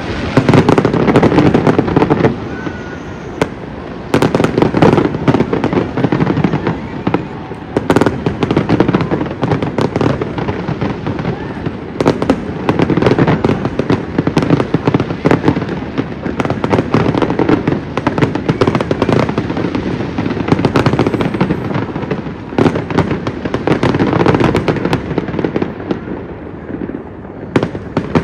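Aerial fireworks display: a dense, continuous barrage of shell bursts and crackling that comes in waves, with several heavier volleys.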